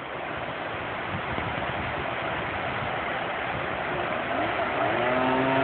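Steady rush of floodwater on a swollen river. About four seconds in, a vehicle engine comes up, rising in pitch and then holding steady.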